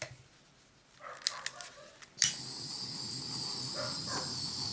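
A few light clicks, then a sharp click a little past two seconds in, followed by a steady high hiss: a handheld butane torch being lit and left burning.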